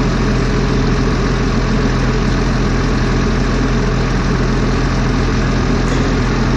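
Heavy forestry machine's diesel engine idling steadily, a constant low drone.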